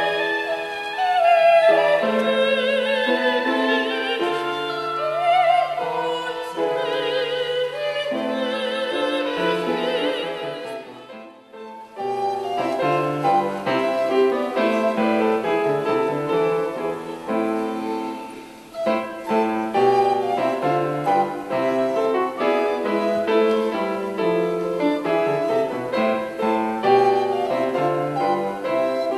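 Classical music: operatic singing with wide vibrato over piano accompaniment, which breaks off about eleven seconds in; after that, piano playing alone.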